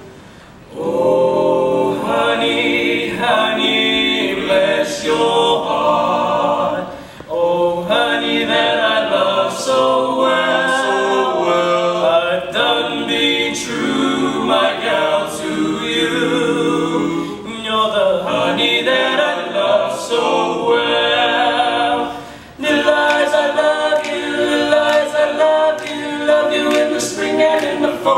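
Teenage boys' barbershop quartet singing a cappella in four-part harmony, with short breaks between phrases about half a second in and again about 22 seconds in.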